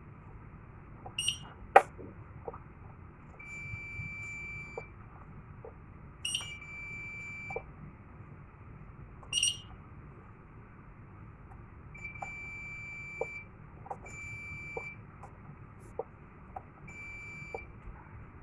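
Fire alarm control panel's buzzer sounding steady high-pitched beeps of about a second each at irregular gaps. Three short sharp chirps and scattered light clicks come between them, and a loud sharp click about two seconds in is the loudest sound.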